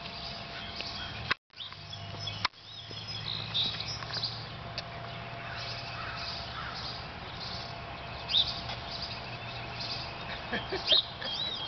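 Birds chirping here and there over a steady low hum of outdoor background noise. The sound drops out for a moment just over a second in, with a click about a second later.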